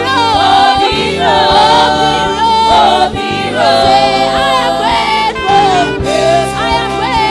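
Live gospel song: a woman lead singer on a microphone with a choir singing along, over a band with a steady drum beat.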